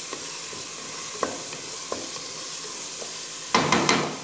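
Green peas and masala sizzling in oil in a pan, at the frying stage of matar pulao before the water goes in. A spoon stirs and scrapes against the pan with a couple of single clicks, then a louder burst of scraping and clatter near the end.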